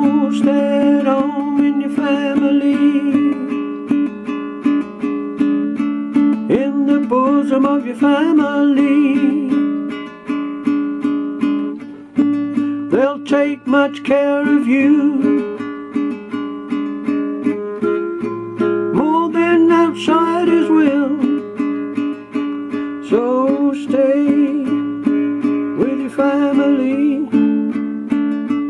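Acoustic stringed instrument strummed in steady chords, with a sung melody that slides up into its notes every few seconds.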